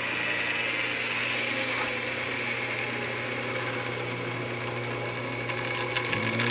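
Jet JWL-1236 wood lathe running: a steady motor hum under the whine of the Reeves variable-speed drive's pulleys and belt. The whine slowly falls in pitch as the speed selector is moved.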